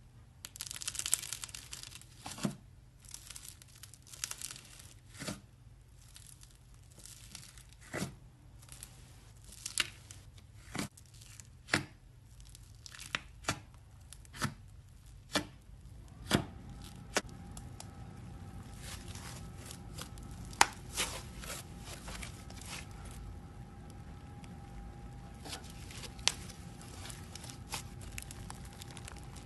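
Clear glitter slime pressed and poked by fingers in a plastic jar, giving a series of sharp pops and clicks, with crackly crinkling in the first few seconds. A steady low hum comes in about halfway.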